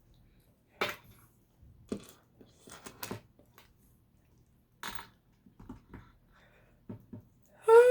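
Small plastic LEGO bricks clicking and knocking as they are handled and sorted, a few scattered taps. Near the end, a short, loud cat meow.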